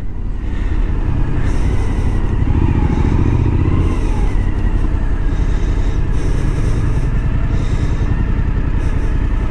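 Motorcycle engine running as the bike rides slowly through town, picking up briefly about three seconds in and then easing off again.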